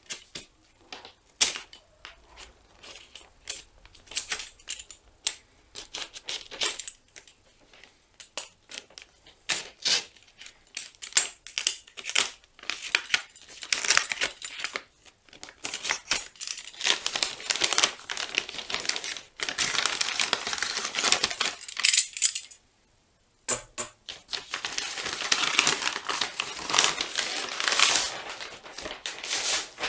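Box cutter slicing through kraft-paper wrapping and the paper being torn and crumpled: sharp clicks and scrapes at first, then long stretches of loud crinkling and rustling paper as the wrapping is pulled off a cardboard box.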